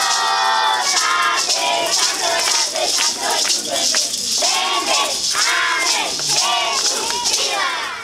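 A crowd of children and adults singing a Christmas refrain together, with maracas shaken in a steady rhythm; it stops right at the end.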